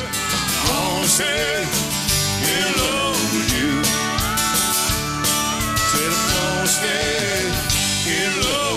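Live country-rock band playing a mid-song passage: electric and acoustic guitars over bass and drum kit, with a wavering lead melody line on top.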